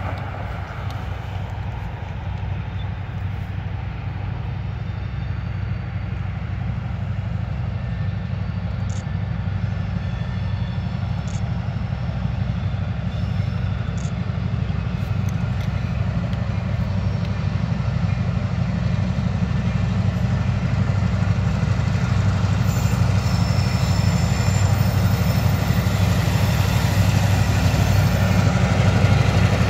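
EMD GP38 diesel locomotive's 16-cylinder two-stroke engine running as the train approaches, a steady low rumble that grows gradually louder, with higher rattling and faint tones joining in over the last several seconds as it nears.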